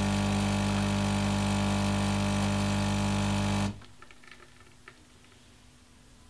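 Philips Senseo Sarista coffee machine running with a steady hum as it brews coffee into a cup, then cutting off suddenly a little under four seconds in. A few faint small clicks follow.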